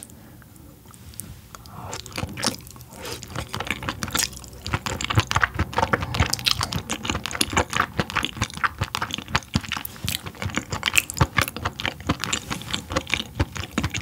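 Close-miked chewing of yellowtail (bangeo) dishes: rapid, crisp wet clicks and smacks that build up after the first couple of seconds and keep going.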